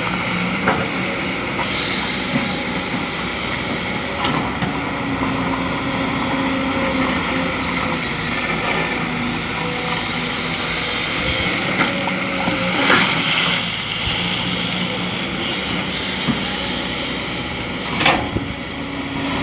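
Kobelco SK200 excavator's diesel engine running steadily as it works, with a few sharp knocks along the way.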